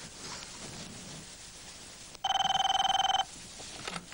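Telephone ringing: one ring about a second long, beginning about two seconds in.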